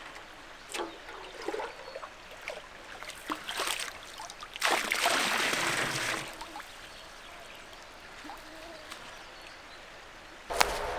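A camping pot dipped into a shallow river and filled with water. There are a few small splashes and knocks, then a louder rush of water for a second or so about halfway through as the pot fills, with the river trickling steadily around it.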